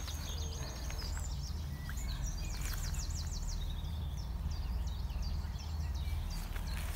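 Small birds chirping and trilling, with a quick run of repeated notes about three seconds in, over a steady low rumble.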